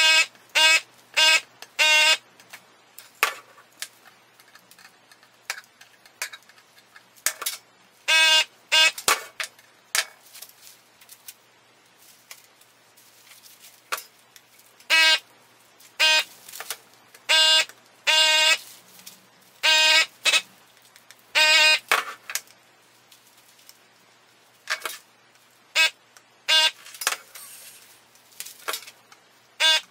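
Vacuum desoldering gun's pump buzzing in many short bursts, each a fraction of a second, grouped in clusters, as it sucks the molten solder off capacitor leads on a circuit board.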